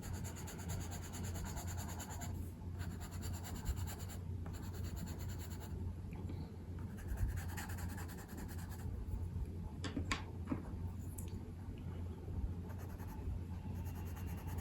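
Pencil scratching and rubbing on paper in short irregular strokes while coloring, over a steady low hum.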